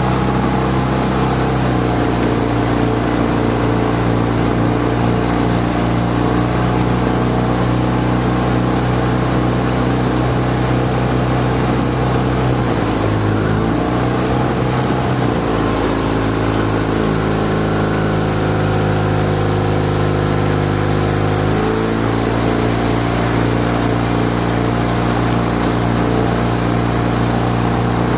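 Motorboat engine running steadily at low speed as it keeps pace alongside a rowing shell. Its pitch dips briefly about 13 seconds in, and its tone changes between about 15 and 22 seconds before settling back.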